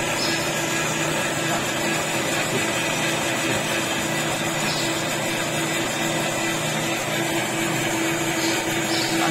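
Metal lathe running steadily on test after its bed was reground, its motor and drive giving an even mechanical hum with one steady tone.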